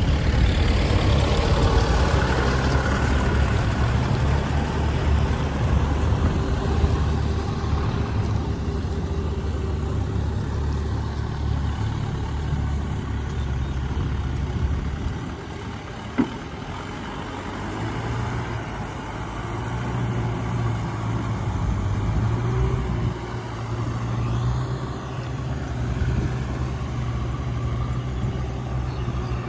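Kubota M6040SU farm tractors' diesel engines running steadily under load while working wet rice-field mud, a low continuous drone that eases a little about halfway through.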